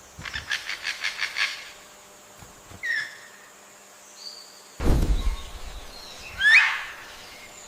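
Bird calls: a rapid run of about eight sharp clicking notes, then a few short, sliding whistled notes. A low rumbling noise comes in about five seconds in.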